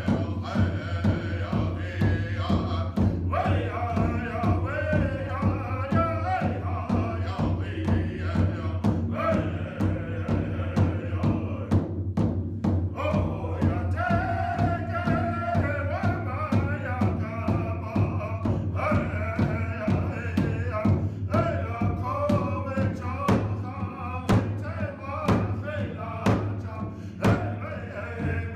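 Native American drum song: group voices singing a chant over a steady, even drumbeat, with a short pause in the singing about halfway through.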